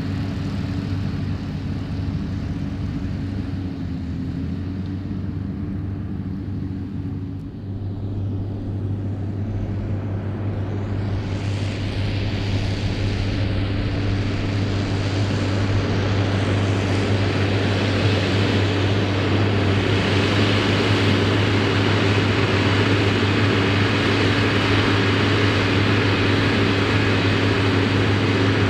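New Holland TM155 tractor engine running steadily under load while working a Claas Variant 385 round baler, with a steady low hum; it grows louder from about a third of the way in and holds there.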